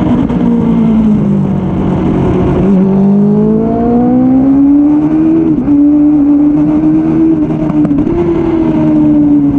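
Suzuki Bandit 600's inline-four engine on a track lap, heard close from the bike. The revs fall away for about two seconds, then climb steadily, dip briefly about halfway through and hold fairly steady, with wind rush over the microphone underneath.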